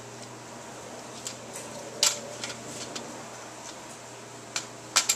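Plastic Nano Habitat raceway pieces clicking and knocking as they are handled and clipped together. There are a few sharp clicks, the loudest about two seconds in and a quick cluster near the end, over a steady low hum.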